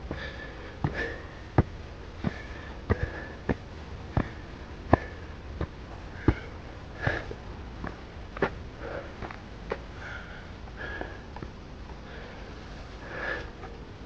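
Footsteps of a person walking on a dirt and leaf-littered forest path and steps, about three steps every two seconds, stopping about ten seconds in.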